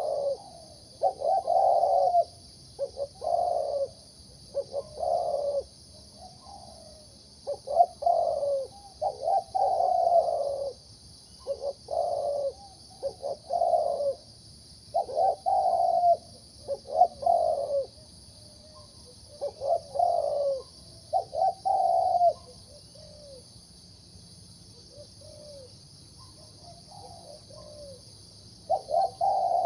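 Zebra dove singing in its mid-pitched contest voice: phrases of rolling, bubbling coos repeated again and again, with a lull of a few seconds late on before the cooing starts up again.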